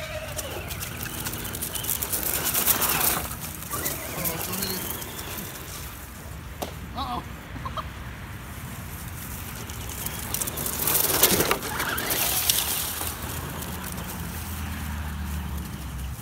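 ECX Amp MT electric RC monster truck driving over concrete, grass and dry leaves: uneven bursts of tyre and chassis noise with rustling leaves as a dog runs after it, loudest about three seconds in and again about eleven seconds in.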